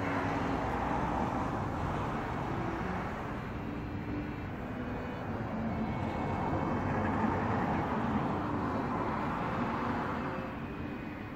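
Road traffic: passing vehicles, their tyre and engine noise swelling near the start and again about six to ten seconds in, then fading.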